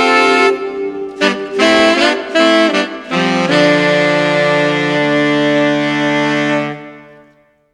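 Background music ending on a held chord that fades out near the end.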